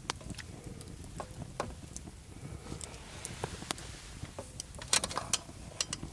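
Wood campfire crackling: irregular sharp pops and snaps, a cluster of louder ones about five seconds in, over a low steady rumble.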